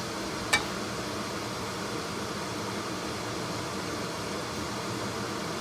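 Snow pea leaves stir-frying in a wok, a steady hiss, with one sharp click about half a second in.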